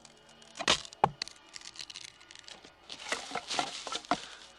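Horror sound effects of blows and tearing: two heavy thuds about a second in, then a burst of tearing, crunching noise with several sharp knocks.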